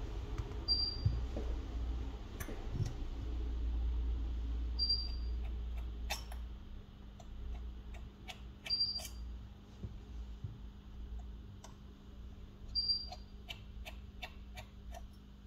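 Scattered light clicks and taps of small tools working on an iPhone 11, with a short high beep repeating about every four seconds over a steady low hum.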